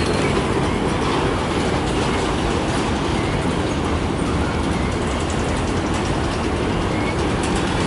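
Long CN freight train of autorack cars rolling past at close range: a steady rumble of steel wheels on the rails, with faint clicks near the end.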